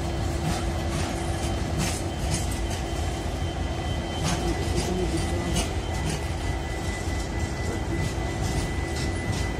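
Fully loaded BCN covered freight wagons rolling past close by: a steady low rumble of wheels on rail, broken by irregular sharp clicks and knocks.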